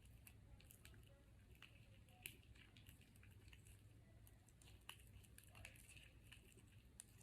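Faint, irregular wet squishing and light clicks of slime being stirred in a bowl, over a low steady hum.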